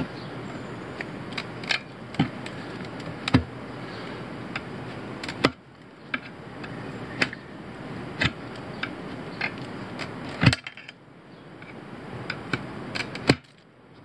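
Irregular metal clicks and knocks of a tire iron against a steel wheel rim as a tire bead is worked onto the rim by hand, with two louder knocks near the end.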